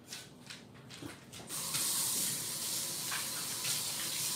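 Kitchen sink faucet turned on about a second and a half in, water running steadily into the sink over something held under the stream.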